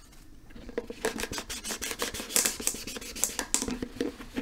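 Scratching and rubbing at the printed paint on a plastic yogurt bucket: a quick, irregular run of short scratchy strokes.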